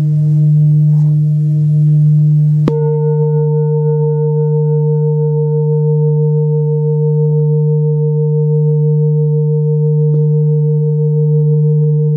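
Tibetan metal singing bowls ringing with a deep, sustained hum that pulses slowly. A little under three seconds in, a bowl is struck with a padded mallet and a higher ring is added that holds on, and a lighter strike follows near the end.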